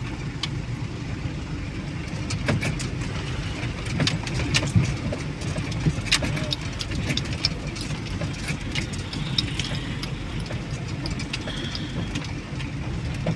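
Truck engine running at low speed, heard from inside the cab as a steady low rumble. Scattered knocks and rattles come from the cab as the truck jolts slowly over a flooded, potholed road.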